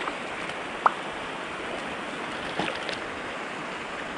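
Steady rushing noise of pond water and breeze. One sharp short click comes just under a second in, and a brief cluster of small knocks follows a little past halfway.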